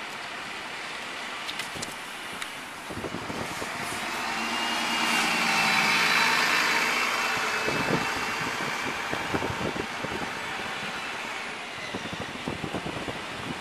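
A diesel double-decker bus driving past close by: the engine and a high transmission whine swell to a peak about six seconds in, then fade as it moves away. A low background of bus station traffic continues, with scattered light knocks near the end.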